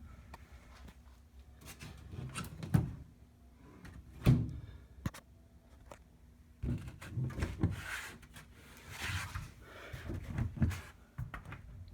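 Push-button flush hood latches on a 1968 VW Baja Bug's hood being worked: a string of clicks, knocks and thumps as the buttons are pressed to unlock and the hood is pushed down to lock back in.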